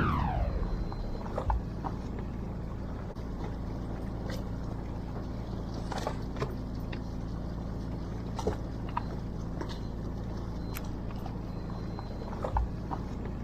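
A fishing boat's engine running with a steady low hum, with occasional short clicks and taps.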